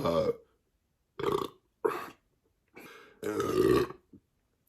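A man burping several times in short separate bursts, the longest near the end, bringing up gas from a carbonated drink.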